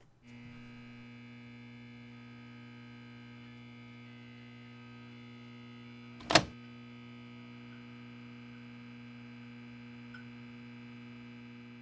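Steady electrical hum made of several layered tones, with one sharp click about six seconds in.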